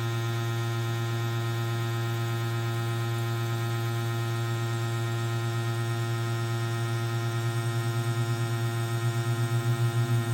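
Electric air compressor switched on and running with a steady, loud hum, pumping air into the plumbing for a pressure test; a pulsing beat creeps into the hum from about seven seconds in.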